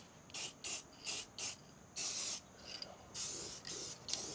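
Aerosol spray can of paint hissing in a series of short bursts, about eight of them, as the fresh welds on a truck frame are coated to keep them from rusting.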